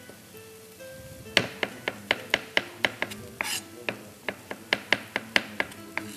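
Chef's knife chopping sliced mushrooms on a cutting board: quick, even strikes of the blade against the board, about four a second, starting about a second in.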